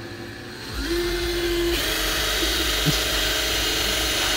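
Power drill spinning up about a second in and running steadily, its bit boring into the sheet-metal trunk lid of a 5.0 Mustang; the sound grows noisier and higher-pitched when the bit bites into the metal.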